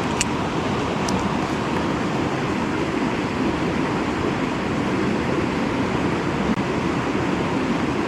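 Steady rushing of creek water spilling over a waterfall, an even roar with no change in level. Two short clicks sound in the first second or so.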